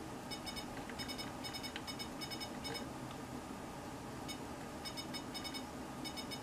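Many short, high electronic beeps in quick succession, in two runs with a pause in the middle, from a signal generator's controls as its output is stepped up to 100 kilohertz.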